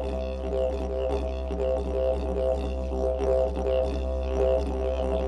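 Background music: a steady didgeridoo drone with shifting overtones above it.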